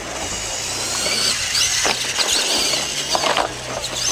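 Electric RC monster truck's motor whining high, rising and falling as the throttle is worked, over a steady background noise, with a few sharp knocks partway through.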